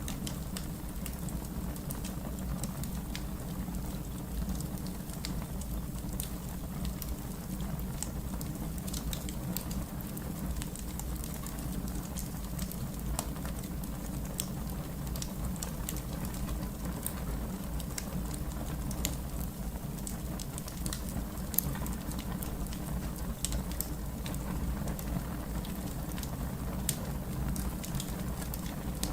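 Fire crackling: a steady low rumble with many small, irregular pops and crackles, one sharper pop about 21 seconds in.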